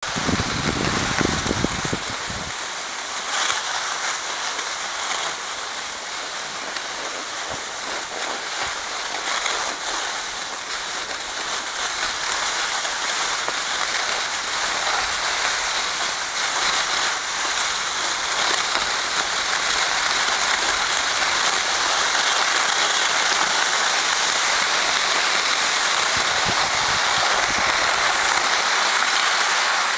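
Skis sliding over packed snow, a steady scraping hiss that grows a little louder in the second half. A low rumble of wind on the microphone sits under it for the first couple of seconds.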